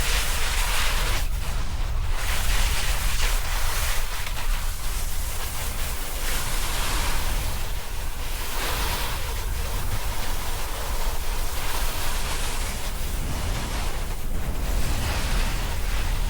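Wind noise on an Insta360 camera's microphone, with the hiss of a snowboard sliding and carving over snow that swells and fades every couple of seconds.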